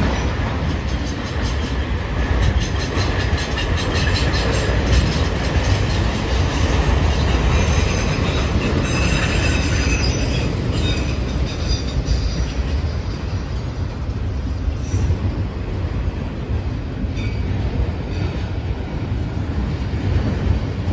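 Freight train's autorack cars rolling past: a steady rumble of steel wheels on rail with rhythmic clicking. A high wheel squeal comes and goes in the first half.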